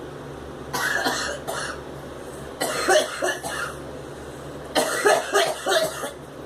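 A young woman coughing from inhaled smoke, in three fits of several short, harsh coughs each, about a second apart. A steady low fan-like hum runs underneath.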